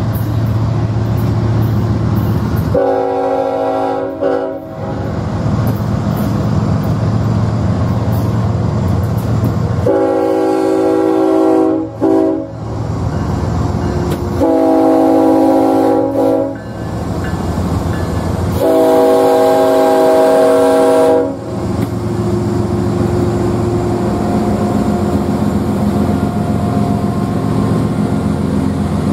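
A Norfolk Southern diesel locomotive's multi-chime air horn sounds four blasts, about 3, 10, 14 and 18 seconds in, each held one and a half to two and a half seconds: a grade-crossing warning. Under the horn a freight train's cars keep up a steady rumble and clatter. In the last few seconds the locomotives' diesel engines come close, running with a steady drone.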